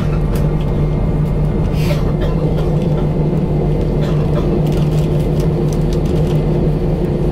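Steady low drone inside the cabin of an Airbus A320-200 as its flaps and slats extend. It is a constant hum with a held low tone and a few faint clicks.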